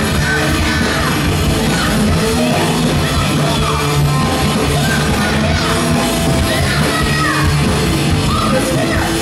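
Punk rock band playing live: a woman yells and sings the vocals over loud electric guitar and bass.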